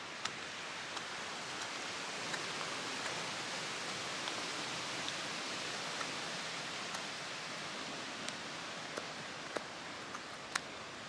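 Mora 510 carbon-steel knife whittling a sycamore spoon blank: short, sharp snicks of the blade cutting shavings, about a dozen at irregular intervals of roughly a second, the loudest near the end, over a steady background hiss.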